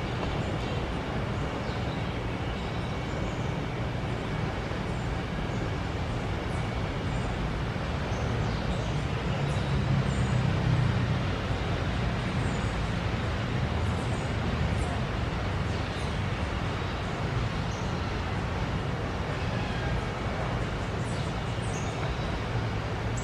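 A steady low rumbling noise, swelling slightly about midway, with faint short high-pitched calls of green parakeets scattered throughout.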